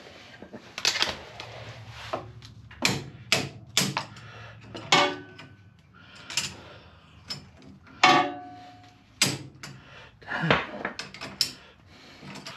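Pliers clicking and clanking on the Jeep's steel steering linkage in a run of irregular sharp metallic knocks, a couple of them ringing briefly, as a caught grease nipple is worked at.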